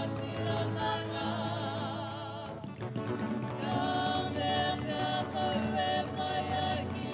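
Group of young women singing a Pacific Island song together in harmony, the held notes wavering with vibrato; the singing breaks off briefly about two and a half seconds in, then the next line begins.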